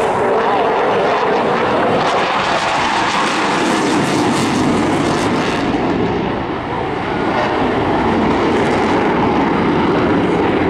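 Eurofighter Typhoon FGR4's twin Eurojet EJ200 turbofans at high power in a flying display: loud, steady jet noise with a rough crackle through the first half, easing briefly about six seconds in before building again.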